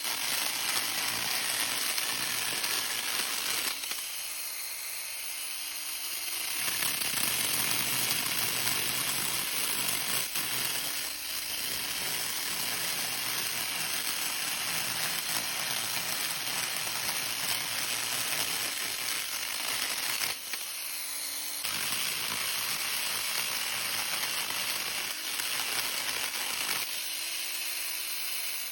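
Battery-powered portable chainsaw cutting through wood, a steady rasping noise. It eases off briefly three times, about four seconds in, around twenty seconds in and near the end, leaving the motor's steady hum running free, then stops abruptly.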